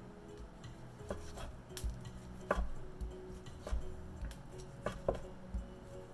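Chef's knife slicing a seared tuna steak on a cutting board: irregular knocks, roughly one every half second, as the blade goes through and meets the board.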